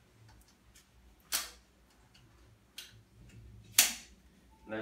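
Adjustable aluminum crutch being set for height: a few sharp metallic clicks and clacks as its push-button pins and tube sections are worked, the loudest about four seconds in, with fainter ticks between.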